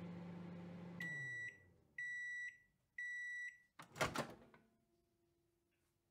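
Microwave oven running with a steady hum that winds down as its timer ends, then three beeps about a second apart signalling the cooking is done, followed by a loud clunk about four seconds in.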